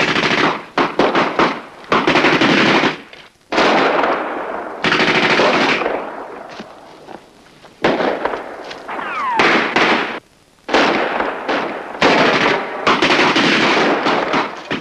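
Gunfight sound effects: a tripod-mounted machine gun firing long bursts, mixed with single gunshots, broken by two brief pauses.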